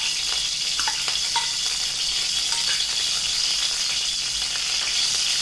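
Cooking oil heating in an aluminium kadai on a gas stove, giving a steady, high sizzling hiss. A couple of light metallic clicks of a steel spoon against the pan come about a second in.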